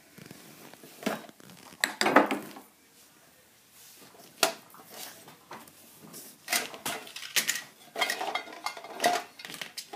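Hard objects, among them glass candle jars with metal lids, clinking and knocking together as a hand rummages through a shopping bag full of purchases. The clinks come in irregular clusters, a few in the first half and many in quick succession in the second half.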